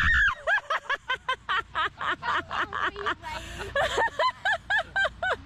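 High-pitched laughter in quick breathless bursts, about five or six a second, with a short break a little past halfway before it picks up again.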